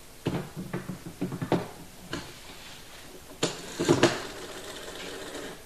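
A desk telephone being picked up and handled: a run of light clicks and knocks in the first two seconds, then louder knocks about three and a half and four seconds in, followed by a steady noise that cuts off near the end.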